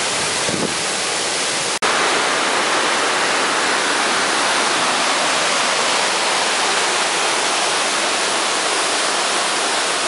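Waterfall rushing: a steady, loud wash of falling water. The sound breaks off for an instant about two seconds in at a cut, then the rush carries on.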